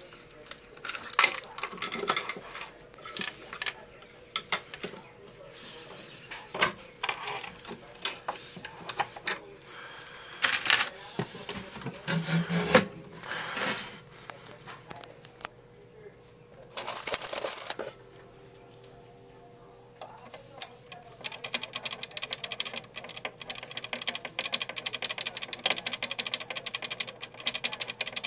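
Irregular clicks, clinks and rustling of small hard objects being handled close to the microphone, with a faint steady hum underneath. About 21 seconds in, a fast run of light tapping starts.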